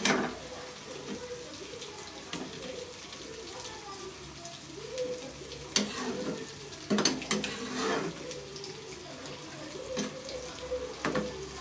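Steel ladle stirring a thick fish curry in a metal kadai: wet sloshing of the gravy, with a few sharp clinks of the ladle against the pot around the middle and near the end.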